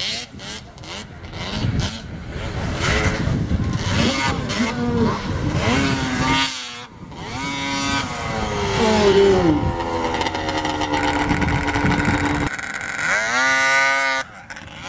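Racing snowmobile engines revving hard as sleds climb a steep snow hill, the pitch swinging up and down with the throttle, falling away about nine seconds in and rising again near the end. The sound cuts off abruptly twice.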